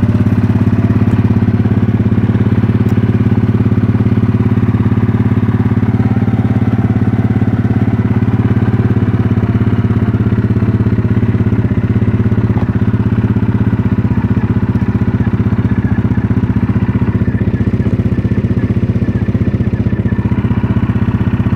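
Yamaha Grizzly 700 ATV's single-cylinder four-stroke engine running steadily, kept running so the stator's AC output can be measured.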